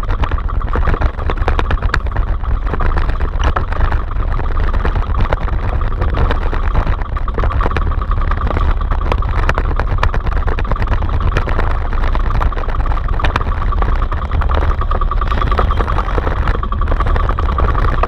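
Small outrigger fishing boat's engine running steadily under way.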